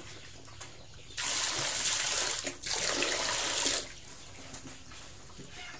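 Water from a hose splashing into a plastic tray on a concrete floor, in two spurts of about a second each with a short break between them.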